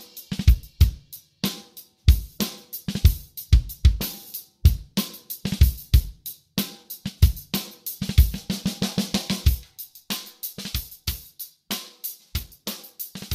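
Recorded drum-kit music (kick drum, snare, hi-hat and cymbals) playing in a steady rhythm through the rebuilt Biamp 1682 mixer channel strip's EQ section as its tone controls are turned.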